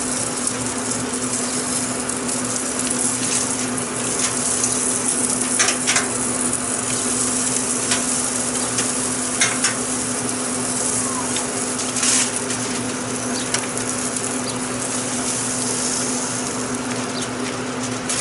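Rack of lamb sizzling on the hot grates of a Pit Boss grill: a steady hiss with a low, steady hum underneath, and a few sharp metal clicks from tongs as the racks are lifted off.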